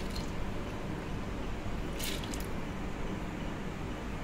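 Handfuls of soaked urad dal dropped into the steel drum of a three-stone wet grinder, giving short wet squishing splats, one about two seconds in, over a steady low hum.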